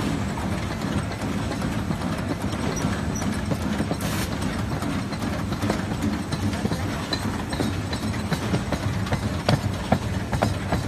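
Corrugated-box folder gluer running, printer-box blanks feeding through its folding and gluing sections: a steady mechanical rumble with rapid clicks and clatter, the clicks coming thicker near the end.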